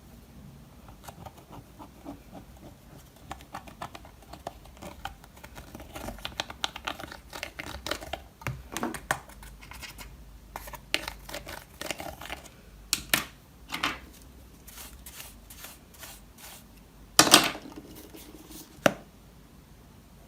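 Slime being worked by hand: a long run of small sticky clicks and crackles, growing busier in the middle, with a few louder pops, the loudest about seventeen seconds in and another just before nineteen seconds.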